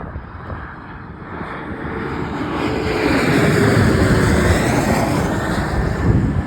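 Jet airliner passing close by: the engine noise builds, peaks midway with a tone sliding down in pitch as it goes past, then cuts off suddenly.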